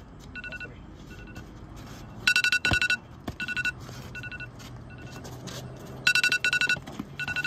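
Electronic ringtone of high trilling beeps: a loud burst about two and a half seconds in and again about six seconds in, each followed by fainter repeats.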